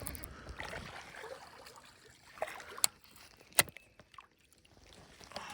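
Handling noises in a kayak while a bass is brought in: light rustling and small knocks, then two sharp clicks a little past the middle.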